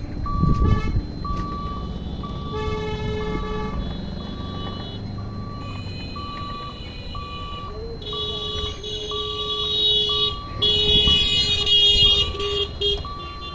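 Level-crossing warning beeper sounding a steady electronic beep about twice a second, the warning that the barrier is closing, over road traffic. A vehicle horn honks about two and a half seconds in, and a longer, louder horn sounds over the last five seconds as a motorcycle passes.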